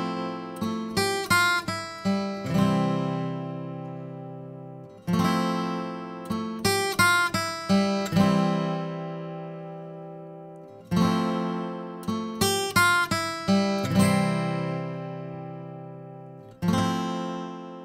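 Background music of acoustic guitar: a phrase of quick plucked notes, each phrase opening with a chord and ending in notes left ringing and fading, repeating about every six seconds.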